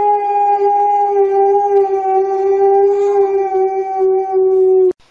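Alaskan Malamute howling: one long howl held at a steady pitch, sagging slightly before it stops abruptly near the end.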